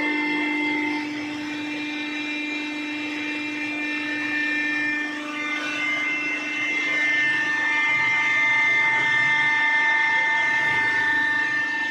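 Hydraulic baling press running: its electric-motor-driven hydraulic pump gives a steady whine of several held tones, which shift in pitch around the middle and grow a little louder in the second half as the load on the press changes.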